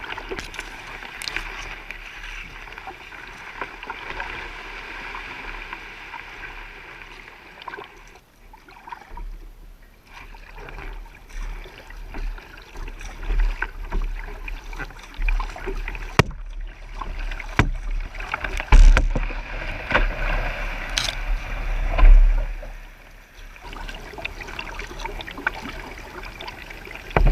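Old Town kayak being paddled along a shallow creek: water running and splashing at the hull, with scattered sharp knocks and several low thumps, mostly in the second half.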